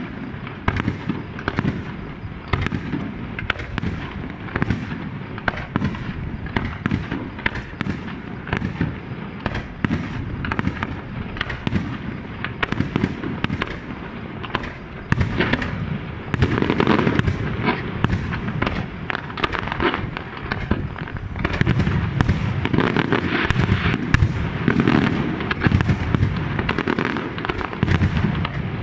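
Aerial fireworks display: a continuous barrage of shell bursts and crackling. It grows louder and denser in two steps in the second half.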